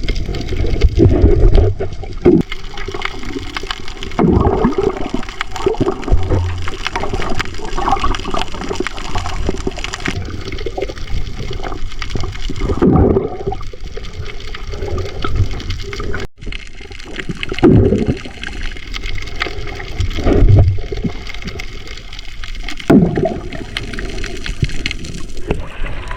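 Water splashing and sloshing in uneven surges.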